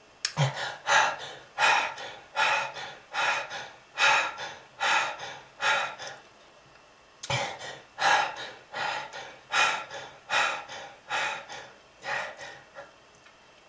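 A person's rapid, labored breaths, gasping in and out about once every 0.8 s, in two runs broken by a short pause about halfway through.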